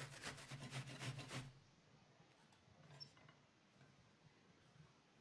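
A roll of toilet paper being grated on a stainless-steel box grater: quick rasping strokes, about five a second, that stop abruptly about a second and a half in. Near silence follows.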